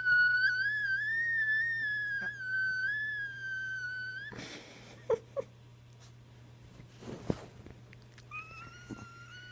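A high-pitched, slightly wavering whistle-like tone sounds for about four seconds and then stops; a few short soft noises and two brief squeaks follow, and the tone starts again near the end.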